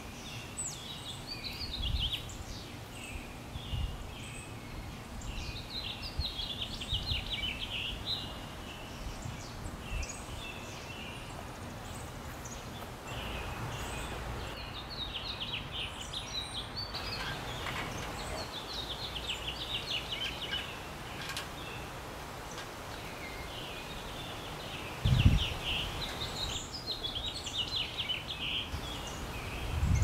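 Songbirds singing: short phrases of rapid high notes repeated every few seconds, over steady outdoor background noise, with low rumbles and one dull thump a few seconds before the end.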